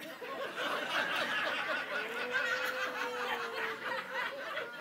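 Theatre audience laughing, many people's chuckles and giggles overlapping, swelling within the first second and carrying on at a steady level.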